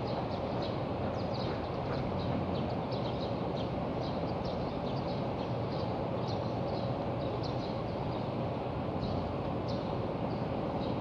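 Steady outdoor background rumble with a faint steady hum, and many short high chirps of small birds scattered throughout.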